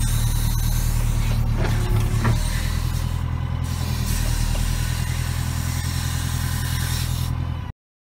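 Lännen C110 backhoe loader's diesel engine running steadily, heard from inside the cab while the backhoe works, with a few short knocks about two seconds in. The sound cuts off abruptly near the end.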